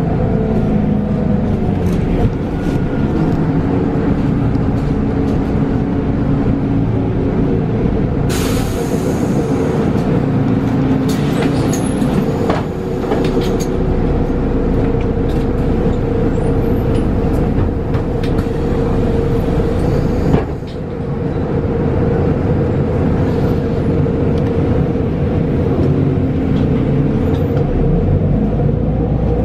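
Mercedes-Benz Citaro G articulated bus with a natural-gas engine and ZF 6HP automatic gearbox, heard from inside the cabin while driving, its engine giving a steady drone. About eight seconds in there is a short burst of compressed-air hiss from the bus's pneumatic system, and the sound dips briefly near twenty seconds in.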